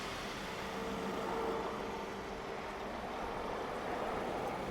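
Car driving, with a steady mix of engine and road noise and no brake squeal.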